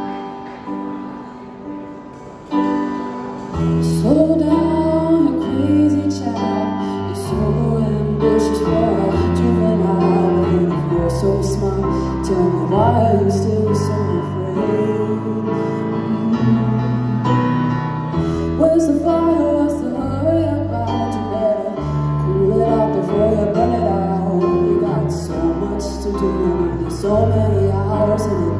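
Live band playing a song with a woman singing: soft held chords at first, then bass and drums come in about four seconds in and the band plays on under her voice.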